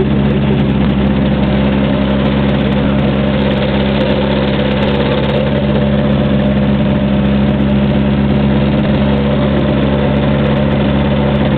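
Ultralight trike's engine idling steadily, heard close up from the seat, with an even, unbroken running note.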